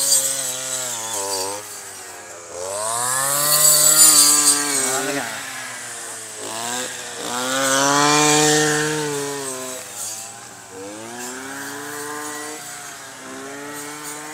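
Handheld brush cutter engine running and revving up and down as it cuts grass. It surges twice, about three and eight seconds in, and runs lower in between.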